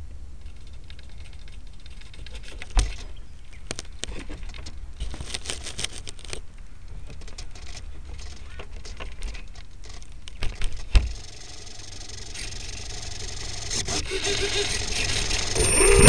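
Clicks, knocks, scrapes and rattles from the remote-control plane and its onboard camera being moved about on the ground, with two louder knocks about 3 and 11 seconds in. Near the end the plane's motor starts and begins spinning up with a rising whine.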